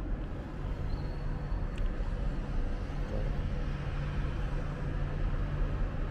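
Steady low background rumble, with a faint single click about two seconds in.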